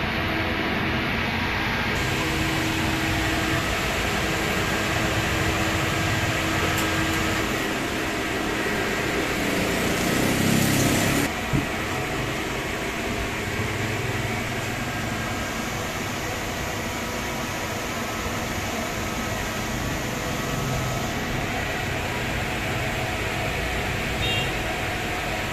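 Steady machine hum and street noise. About ten seconds in, a louder rush swells for roughly two seconds, cuts off abruptly and is followed by a short click.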